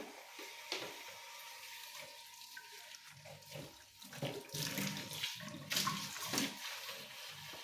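Water running from a tap and splashing unevenly into a sink, heavier from about halfway through.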